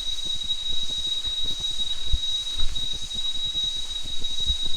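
Continuous high-pitched ringing from the forest trees, one unbroken steady tone, with a couple of low thuds underneath.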